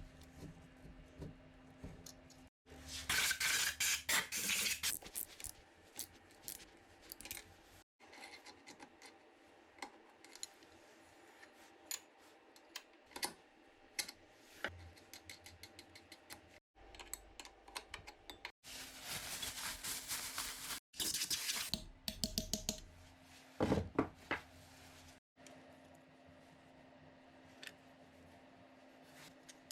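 Metal-on-metal workshop sounds of hand tools and motorcycle engine parts being handled: clinks, scrapes and rattles in a string of short clips that cut off abruptly one after another. The louder bursts of clatter and scraping come a few seconds in and again about two-thirds of the way through, with a steady low hum behind some of the clips.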